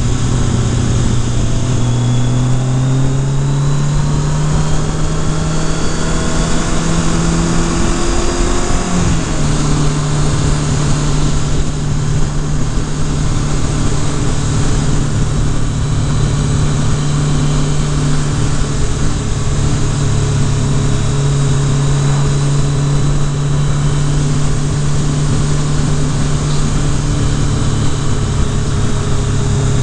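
Kawasaki Concours ZG1000's inline-four engine under way. It pulls with slowly rising pitch for about eight seconds, drops briefly on a gear change about nine seconds in, then runs at a steady cruise, with wind rushing over the microphone throughout.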